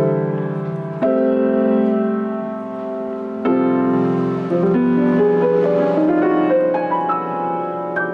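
Piano music: held chords struck about a second and again about three and a half seconds in, then a slow rising run of single notes.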